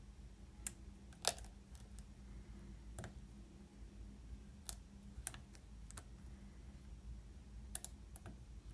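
Small sharp clicks from a lock pick working the pins of a Master Lock bike lock, about ten of them at irregular intervals, the loudest about a second in. These are the pin clicks a picker feels and hears as pins set or fall back, here without consistent feedback.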